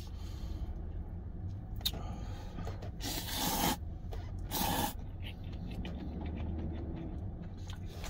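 A man slurping instant noodles, two loud slurps a little over a second apart near the middle, with small mouth and chopstick clicks around them. A low steady hum runs underneath.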